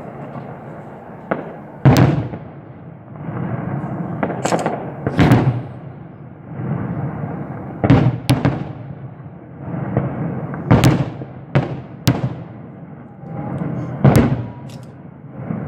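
Fireworks going off: about ten sharp bangs at irregular intervals of one to three seconds, each followed by a rumbling echo.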